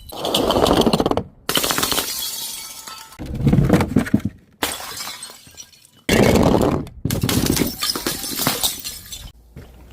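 Glass bottles shattering: several breaking crashes one after another, each with a scatter of tinkling shards, and each cut off abruptly before the next begins.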